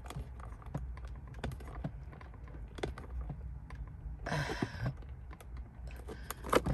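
Small screwdriver clicking and tapping irregularly against the hard plastic latch of a centre console lid as it works the screws of a replacement locking tab, with a brief hiss about four seconds in.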